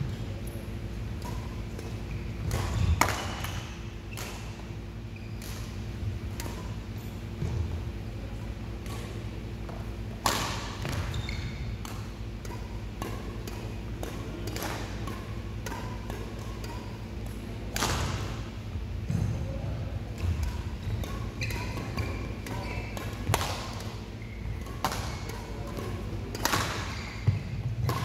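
Badminton rackets striking a shuttlecock in sharp, scattered hits, with thumps of footsteps on the court, over a steady low hum.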